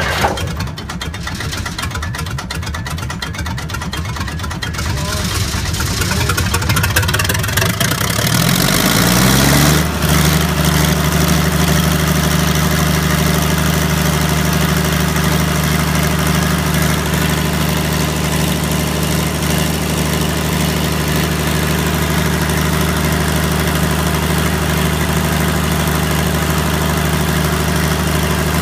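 Rolls-Royce SF65 diesel engine of a 100 kVA generator running just after a cold start, rough at first. It rises in pitch as it comes up to speed about ten seconds in, then settles into a steady, even run.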